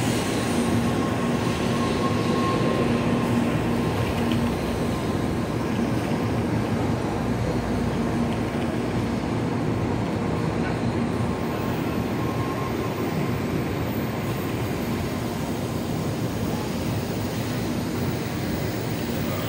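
N700-series Shinkansen bullet train running slowly along the platform as it pulls into the station, a steady rumble of wheels and running gear with a faint hum, easing off a little as it brakes.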